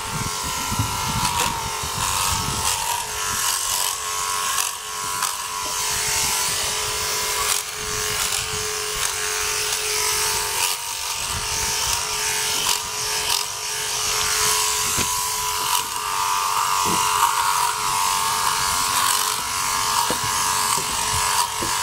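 Handypiece Pro portable electric sheep clipper running steadily with a high-pitched buzz as it cuts through dirty wool while dagging a sheep.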